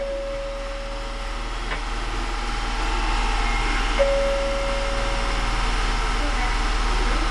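Osaka Metro 31 series subway train running, its noise building steadily as it gathers speed. A flat beep about a second and a half long sounds twice, four seconds apart.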